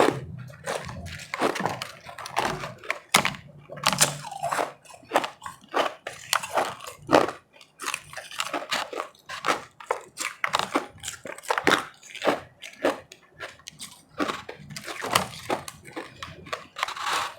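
Close-up eating of refrozen powdery ice: crunching bites and chewing, a dense run of irregular crackles.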